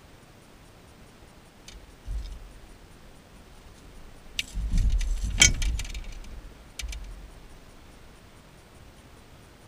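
Metal gear clinking and rattling as it is handled in an aluminum boat, with a few dull thumps. The loudest cluster comes about halfway through.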